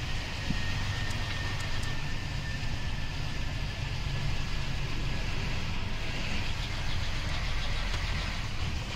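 Semi-truck's diesel engine and road noise heard from inside the cab while driving, a steady low rumble.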